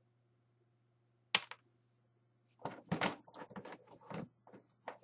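Hard plastic action figures being handled and set down: one sharp clack about a second and a half in, then a run of irregular clattering knocks from about halfway through.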